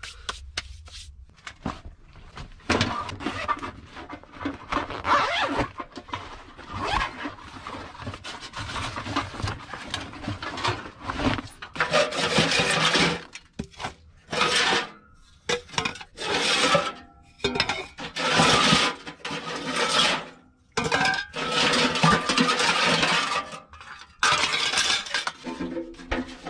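Sheet-metal parts of a portable Kabanchik wood stove being handled and fitted together: metal scraping, rubbing and clinking in irregular bursts of one to two seconds.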